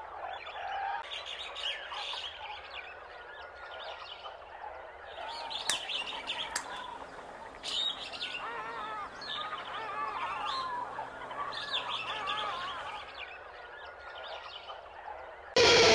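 Many short chirping and peeping animal calls, overlapping in quick runs, with two sharp clicks about six seconds in. Loud music cuts in suddenly near the end.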